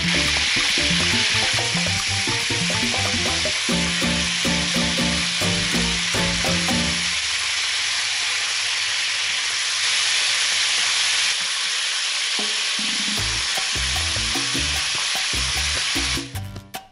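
Chicken drumsticks sizzling as they fry in oil in a pan while being turned with a wooden spatula. The sizzling is steady and cuts off suddenly near the end.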